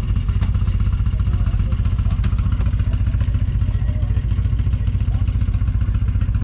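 1977 Ford F-150 pickup's engine idling, heard from inside the cab: a steady, fast, even low pulse.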